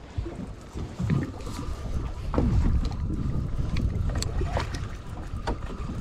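Wind buffeting the microphone on a boat at sea, gusting unevenly, with scattered light clicks and knocks, the sharpest a little over two seconds in.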